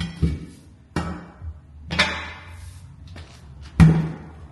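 A series of heavy knocks and clanks, about five at irregular intervals, each with a short ring, the loudest near the end.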